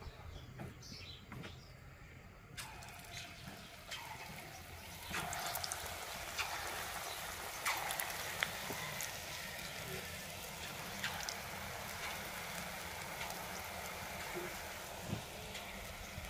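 Batter pakoras deep-frying in hot oil in a kadhai: a steady sizzling crackle with scattered sharp pops. The sizzle starts about two and a half seconds in and swells about five seconds in as more batter goes into the oil.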